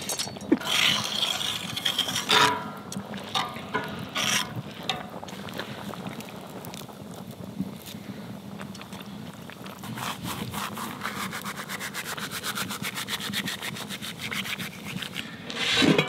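A utensil scraping and rubbing in the kazan of plov, with a few sharp knocks in the first seconds, then a fast, even run of strokes over the last several seconds.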